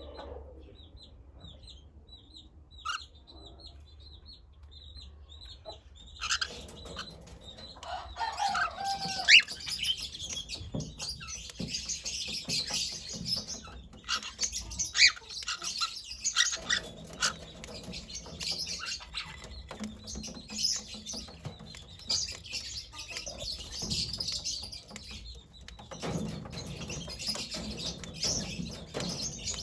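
Pet cockatiel chirping in short, high calls, faint at first and much busier from about six seconds in. A few rising whistled notes and occasional sharp clicks are mixed in.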